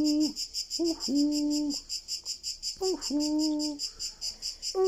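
High, evenly pulsing trill of insects, probably cicadas. Over it, a low steady note with a short falling start sounds three times, about a second each and roughly every two seconds.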